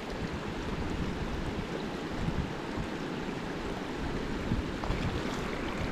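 Wind rushing over an outdoor microphone: a steady hiss with uneven low rumbles as it gusts.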